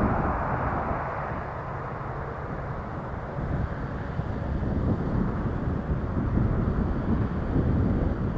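Jet airliner engine noise fading away over the first second or two, with gusty wind buffeting the microphone as a low rumble that grows stronger a few seconds in.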